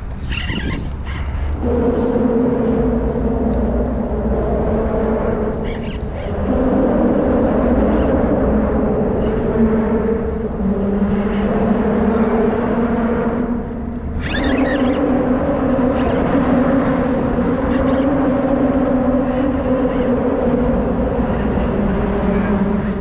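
A motorboat's engine running steadily over a low rumble, its pitch shifting several times.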